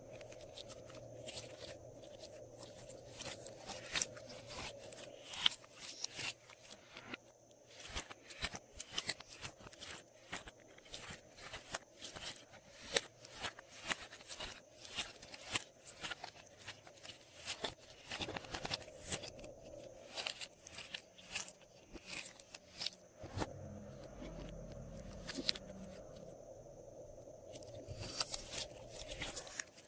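Glossy slime being squished and worked by hand, with dense, irregular sticky clicks and crackles that thin out for a few seconds a little past the middle.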